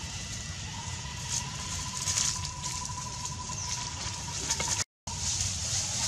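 Outdoor ambience: a steady high hiss over a low rumble, with a thin steady tone held from about a second in until a brief dropout near the end.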